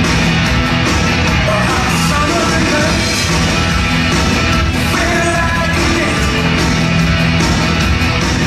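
Loud rock music with a steady beat and a singing voice, played for a bodybuilder's posing routine.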